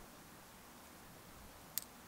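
Quiet outdoor ambience: a faint steady hiss, broken by one sharp click near the end.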